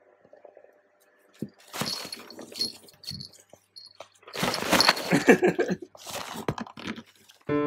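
Fabric cat play tunnel rustling and crinkling in irregular bursts as a hand, a cat and a wand toy move through it, loudest about halfway through.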